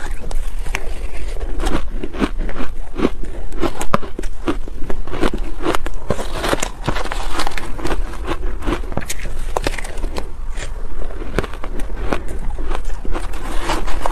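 Close-miked crunching and chewing of soft shaved ice dusted with matcha powder: a dense, irregular run of sharp crunches, along with a spoon scooping and scraping ice in a plastic tub.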